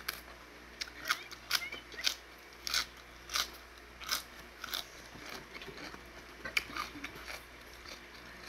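A person chewing crisp raw vegetables with the mouth close to the microphone: a run of short, sharp crunches about one to two a second.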